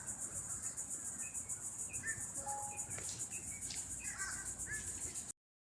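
Outdoor ambience of insects trilling steadily and high-pitched, with scattered short bird chirps. It cuts off suddenly near the end.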